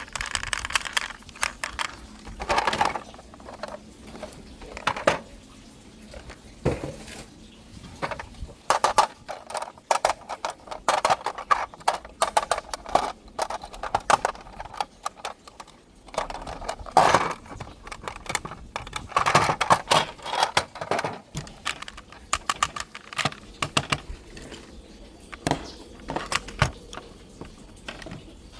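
Irregular rapid clicking and clattering, with several louder rattling stretches.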